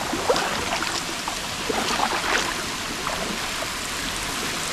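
Steady rush of falling water with many small scattered splashes: a lake fountain's spray coming down on the water around a kayak.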